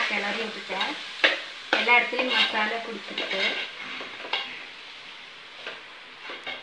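Steel ladle stirring and scraping rice through hot biryani masala in an aluminium pot, the mixture sizzling as it fries, with a few sharp clicks of the ladle against the pot in the first two seconds. The sound is busier in the first half and quieter after about four seconds.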